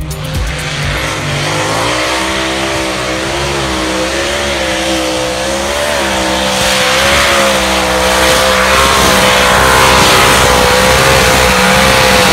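A competition pulling vehicle's engine running at full throttle during a pull. Its pitch climbs over the first two seconds, then holds high with slight wavers.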